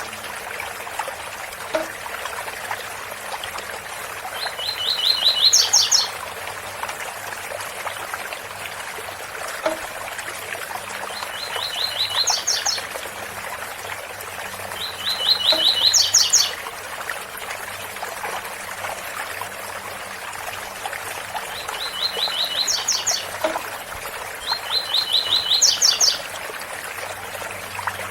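Double-collared seedeater (coleiro) singing its 'tui-tui' song. Five short phrases, each a quick run of repeated notes ending in a few higher notes, rise above the steady rush of a small waterfall.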